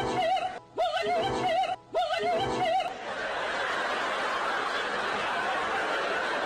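Three identical warbling calls, each about a second long with a rapidly wobbling pitch, then a steady hiss of noise from about three seconds in.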